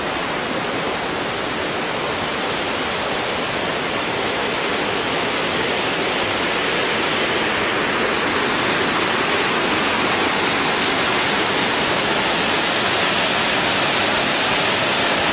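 Loud, steady rush of water from Yosemite Creek pouring over the brink of Yosemite Falls, a dense roar with no breaks. It grows slightly louder and hissier over the last several seconds.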